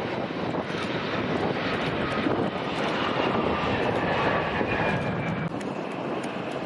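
An airliner passing, its engine noise swelling and then easing, with a whine that slides down in pitch as it goes by.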